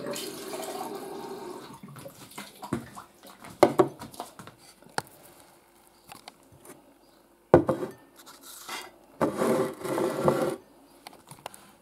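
Liquid poured into glass containers in two runs, one about two seconds long at the start and another near the end, with sharp knocks and clinks of glassware between.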